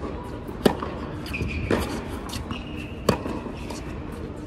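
Tennis ball bouncing on an indoor hard court: three sharp bounces, about a second or more apart.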